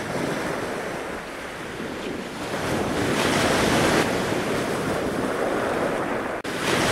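A steady rushing noise without any pitch, swelling about three seconds in and easing off, with a brief break near the end.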